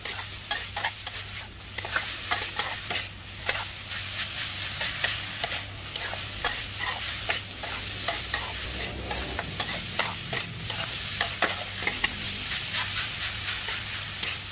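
Minced pork and its mix-ins sizzling in oil in a wok while a metal spatula scrapes and clacks against the pan, several strikes a second, as the mixture is stir-fried together.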